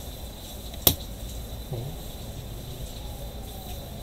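A plastic opening pick prying along the edge of a phone's case, with one sharp click about a second in, over a steady background hiss and hum.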